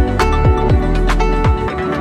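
Background electronic music with a steady beat of deep kick drums and plucked, guitar-like notes.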